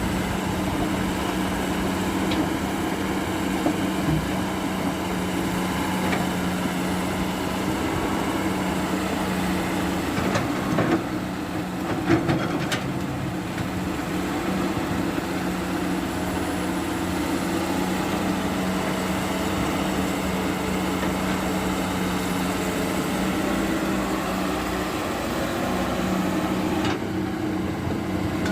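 Heavy diesel earthmoving machinery running steadily with a low, even hum, with a few short knocks or clanks about eleven and twelve seconds in.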